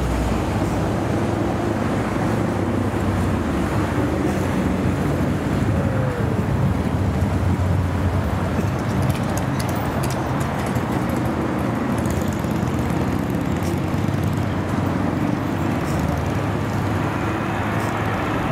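Steady traffic noise on a busy city road: cars and buses running past, with a low engine hum underneath.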